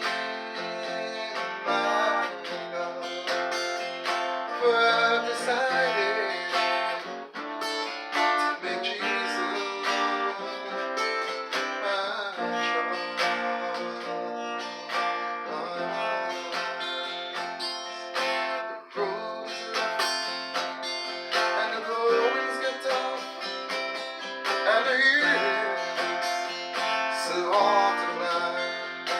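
Acoustic guitar playing an instrumental break in a gospel song, with plucked and strummed notes.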